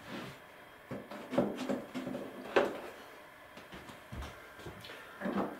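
Light knocks and rubbing as a film-covered balsa model-aircraft wing is picked up and seated onto the fuselage, ending in a tight fit. The sharpest click comes about two and a half seconds in and a dull low thump about four seconds in.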